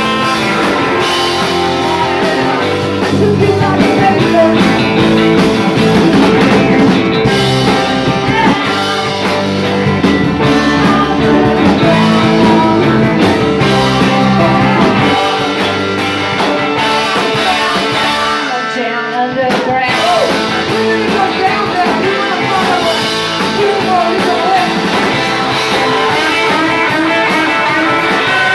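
A rock band playing live: electric guitars, bass guitar, drums and saxophone, with women singing. The bass and drums drop out for about a second a little past the middle, then the band comes back in.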